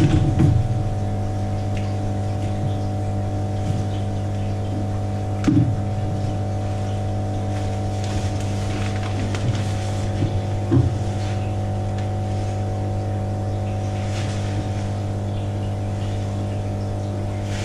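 Steady mechanical hum made of a low drone with several fixed higher tones, with a few faint knocks about a third of a second in, at about five and a half seconds and at about eleven seconds.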